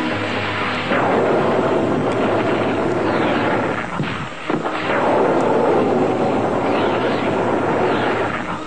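Cartoon sound effects of a magic energy portal: a loud rushing, blasting noise with several whooshing sweeps, starting about a second in and dipping briefly midway.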